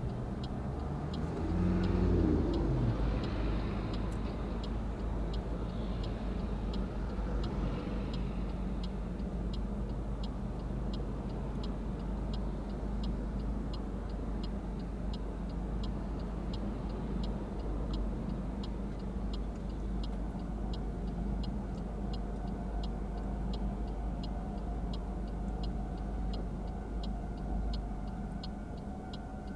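Car interior: engine running with a steady low rumble while the turn-signal relay clicks about one and a half times a second. An engine revs up briefly about two seconds in. About two-thirds of the way in, a railway level-crossing warning bell starts ringing faintly with a steady repeating tone, the sign that a train is approaching and the crossing is closing.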